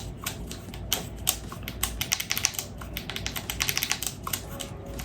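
Airsoft rifle parts being handled at close range: many light clicks and taps of plastic and metal, coming in quick runs a couple of times, as the pistol grip is fitted to the lower receiver.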